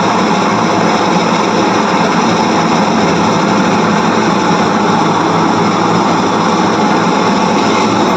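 Haier double-power washing machine running its spin cycle with a loud, steady mechanical noise. This is typical of a faulty clutch.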